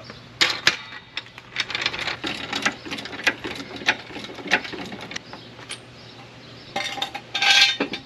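Steel floor jack being pumped to lift a car, its handle and lift arm giving short metallic clinks a few times a second. Near the end comes a louder metal rattle.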